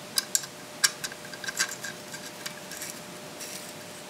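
A string of sharp little metallic clicks and ticks, densest in the first two seconds and then thinning out. They come from the rail's small steel mounting screws and the tool being worked by hand as the screws are threaded into the handguard's inserts.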